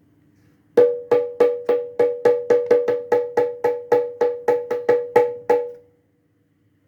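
Sundanese jaipong kendang struck by hand in a quick run of about eighteen sharp, ringing, pitched strokes, roughly four a second, stopping about a second before the end. It is a sound test of the drum's white-rope-laced heads at their first tuning.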